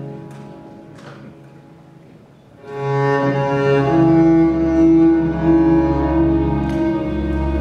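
Instrumental music with bowed strings: a quiet passage fades away, then about two and a half seconds in a loud new passage enters with long held notes over a deep bass.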